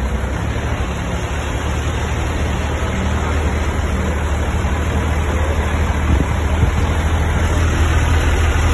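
Heavy vehicle's engine running with a steady low drone as it drives through floodwater, with rushing and splashing water around it; the sound grows gradually louder.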